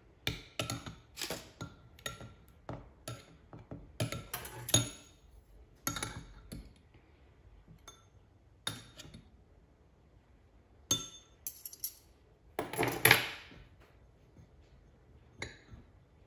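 Metal spoon and fork clinking and scraping against ceramic bowls as cookie balls are dipped in apricot jam and rolled in grated coconut. The clinks are light and irregular, with a louder cluster about a quarter of the way in and the loudest knocks about four-fifths of the way through.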